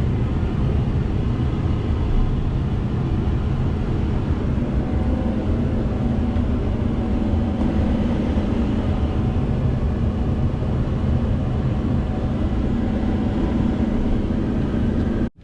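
An engine running steadily nearby: an even low drone with a constant hum that holds the same pitch throughout.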